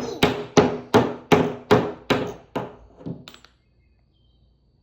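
Hammer striking a nail into a wooden frame in a steady rhythm, about two and a half blows a second, each with a short metallic ring; the blows weaken to a couple of light taps and stop about three and a half seconds in.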